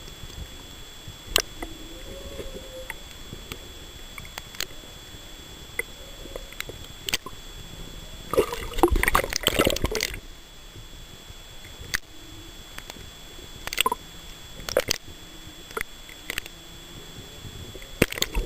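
Underwater sound picked up by a camera in the sea: a steady water hiss with scattered sharp clicks, and a louder churning rush of water lasting about two seconds, starting about eight seconds in.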